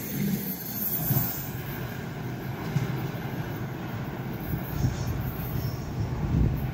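Freight container train's wagons rumbling and clattering over the rails as the tail of the train moves away down the track.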